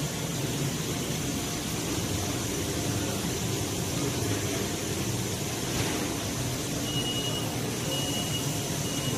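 Steady running noise of an automated nurungji production line, with a low hum and a hiss, as a chain conveyor carries stainless pots over rows of gas burners. Near the end three short high beeps sound about a second apart.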